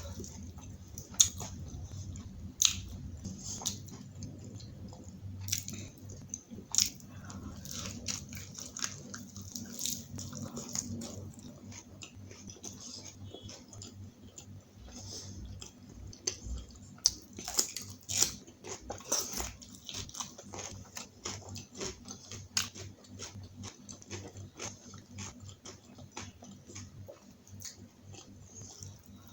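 A person eating close to the microphone: chewing and biting, with short wet smacks and occasional crunches coming at irregular moments, from a meal of butter naan, kadai paneer and salad. A low steady hum runs underneath.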